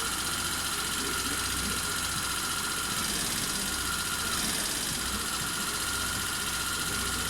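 GY6 150cc four-stroke single-cylinder scooter engine idling steadily after a rebuild, with a thin steady high whine over the low idle rumble.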